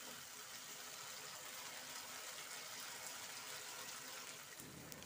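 Faint steady sizzle of taro pieces (kochur mukhi) cooking in spiced masala in a pan.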